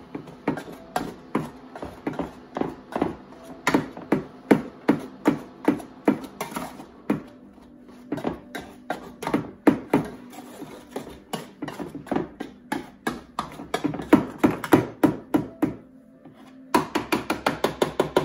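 Potato masher pounding freshly boiled potatoes in a metal pot, a steady run of knocks about two to three a second as it strikes the pot bottom. There is a short pause near the end, then a quicker run of strokes.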